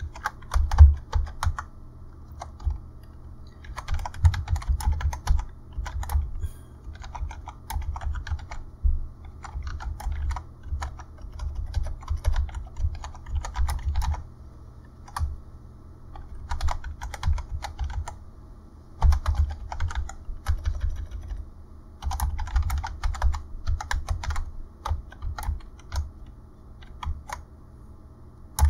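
Typing on a computer keyboard: runs of quick keystroke clicks with short pauses between words, each stroke carrying a dull low thud.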